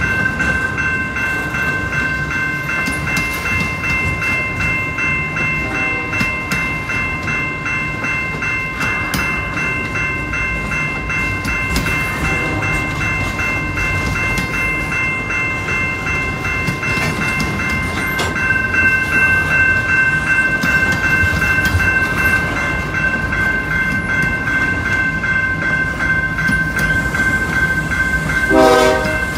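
A freight train rolling past, its cars running by with clickety-clack and several steady high tones held throughout. The sound grows a little louder past the midpoint, and a brief louder pitched sound comes just before the end.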